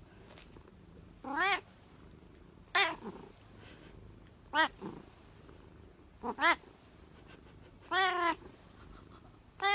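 A cat meowing over and over: about six short meows, roughly a second and a half apart.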